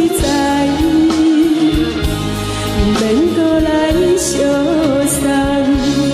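A woman sings a slow Taiwanese Hokkien pop ballad into a microphone, holding long notes with a slide up in pitch about three seconds in, over instrumental accompaniment with a steady beat.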